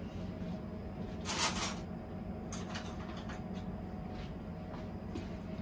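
A steady low background hum with one brief, louder handling noise about a second and a half in and a few faint clicks.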